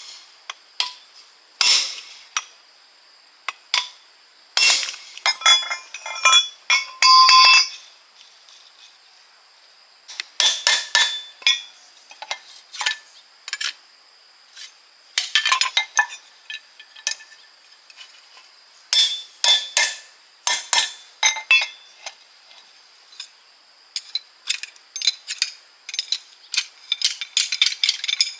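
Metal hand tools and gearbox parts clinking and knocking against each other in irregular clusters, some strikes leaving a short metallic ring.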